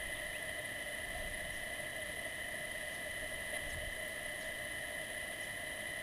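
A grounded drone lying still, its electronics giving a steady whine at several fixed pitches over a soft hiss, with a few faint short chirps.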